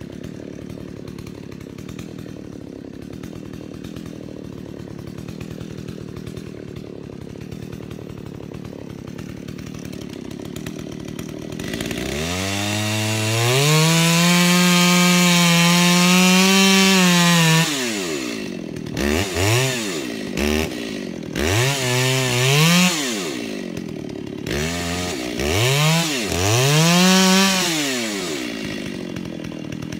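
Two-stroke chainsaw idling, then opened up to full throttle about twelve seconds in and held for about five seconds. After that it is revved in a series of short bursts, the pitch rising and falling with each one, as it works a felling cut.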